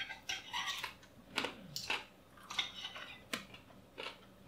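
Forks and knives clicking and scraping on ceramic plates as breaded chicken cutlets are cut and eaten, with some chewing; the clicks come singly, about half a dozen spread through.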